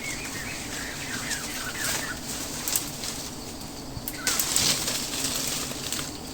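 A bird chirping in short calls, then a couple of brief rustling noises, over a steady low background hum.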